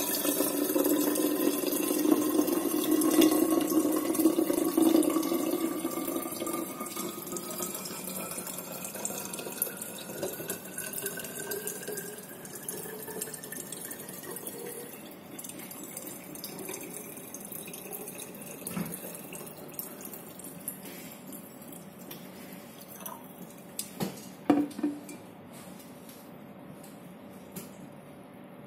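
Water pouring from a copper jug into a narrow-necked copper bottle. The pour is loudest for the first several seconds, then thinner, and the pitch of the filling sound rises steadily as the bottle fills. A few light knocks come near the end.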